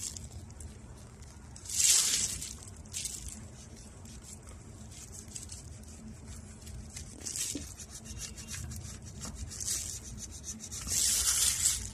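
Metal callus scraper shaving hardened dead skin off a heel in separate scraping strokes. The loudest stroke comes about two seconds in, and a longer one comes near the end.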